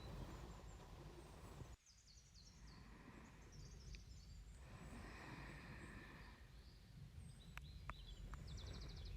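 Faint slow breathing close to the microphone, two soft breaths in the middle, with faint bird chirps in the background and a couple of small clicks near the end.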